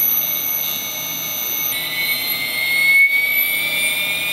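Small brushless electric motor spinning a 3D-printed gyroscope flywheel, a steady high whine that jumps up in pitch a little under two seconds in and then slowly climbs as it speeds up.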